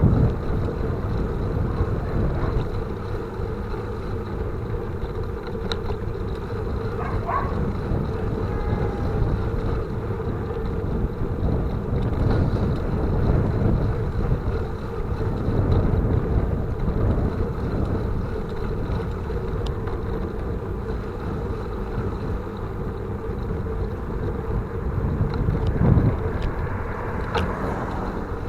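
Wind buffeting the microphone over the steady road rumble of a bicycle being ridden, with no big changes in level.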